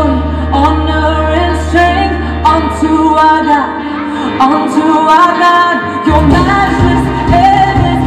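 A pop song with singing played loudly through a PA rig of large subwoofers and pole-mounted top speakers in an audio test of the system. The heavy bass fades out about halfway through and comes back in with the beat about six seconds in.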